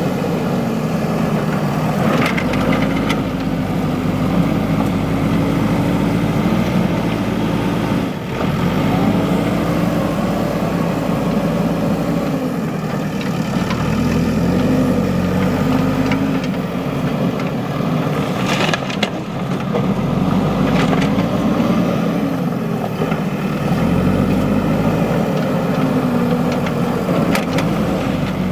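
JCB 3DX backhoe loader's diesel engine running, its pitch rising and falling again and again as it works, with a few sharp metallic knocks now and then.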